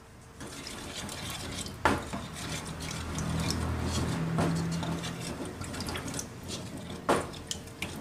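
Wooden spoon stirring water and oil in a ceramic bowl: the liquid swishes and sloshes, with two sharp knocks of the spoon against the bowl, about two seconds in and near the end.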